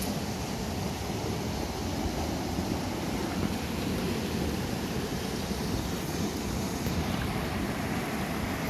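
Steady rush of a small mountain river running over rocks.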